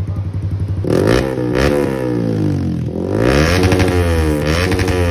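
Motorcycle with an aftermarket Villain Carbon 370 exhaust idling, then revved several times from about a second in, the engine pitch rising and falling with each blip of the throttle.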